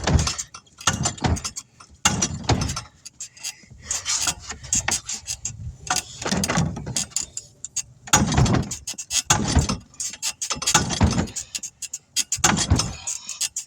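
Tire machine and metal tire tools clanking and scraping as a truck tire's bead is worked over its rim, in an irregular run of knocks and scrapes about a second apart.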